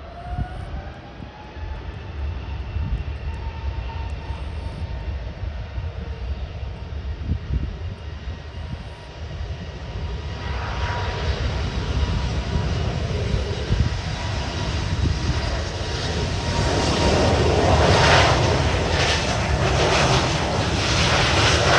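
Airbus A320neo's Pratt & Whitney PW1100G geared turbofan engines. A whine rises in pitch at first, then a rushing jet noise grows steadily louder and is loudest over the last few seconds.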